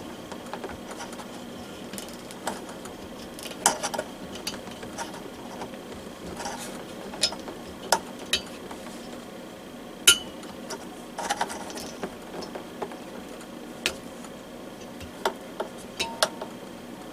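Scattered light clicks and knocks of plastic heater casing parts being handled and pried apart during disassembly, over a faint steady background hum.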